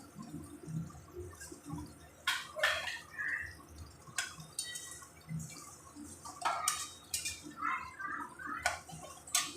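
A metal spoon clinking and scraping against a cooking pot of fish curry, a few sharp knocks in two clusters with short ringing.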